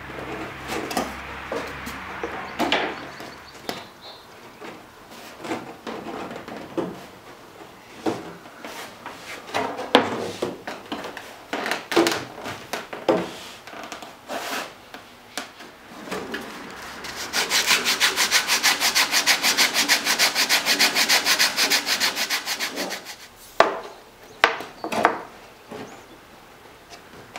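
Cedar strips knocking and rubbing against each other as a strip is pressed and worked into the gap in the canoe hull. About 17 seconds in, several seconds of steady, fast scraping on the wood, followed by a few sharp knocks near the end.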